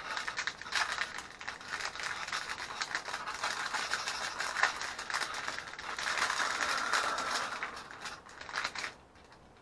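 Clear plastic bag crinkling and rustling with many small clicks as a hand works it open and takes out rubber model tyres. It stops about nine seconds in.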